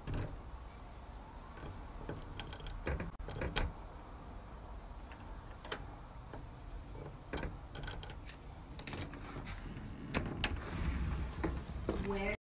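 A bunch of keys jangling and a key scraping into a brass door deadbolt: scattered metallic clicks and rattles, stopping abruptly near the end.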